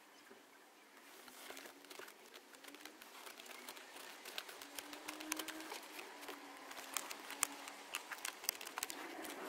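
Scattered light clicks and rustling from hands working on the car's plastic centre console trim around the cigarette lighter socket, growing busier from about four seconds in.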